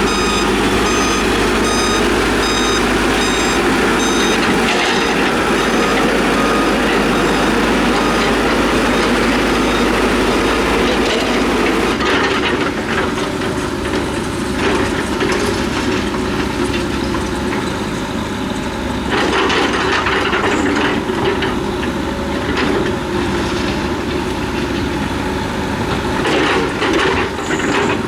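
Heavy diesel earthmoving machine running with its reversing alarm beeping at an even pace for about the first twelve seconds. Then the sound changes abruptly to engine noise with irregular clattering and crunching, as of steel tracks and gravel.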